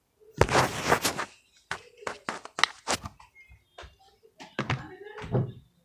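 Slime being stirred with a pencil in a large plastic container: a loud rustling burst near the start, then a quick run of sharp taps and knocks against the container.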